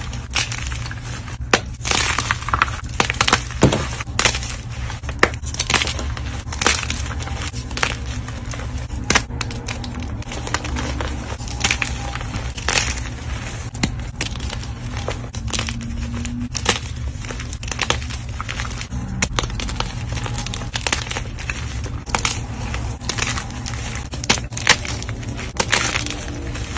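Blocks of dyed gym chalk being crushed, with irregular sharp crunches and crumbling over a steady low hum.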